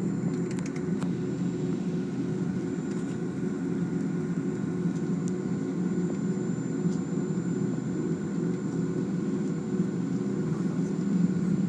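Steady low rumble of a Boeing 757-200's jet engines and airflow heard inside the passenger cabin, with a few faint steady tones above it.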